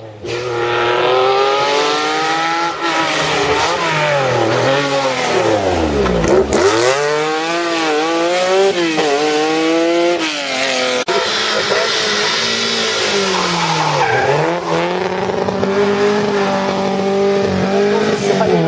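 Historic rally car engine revving hard through repeated gear changes, its pitch climbing and dropping over and over.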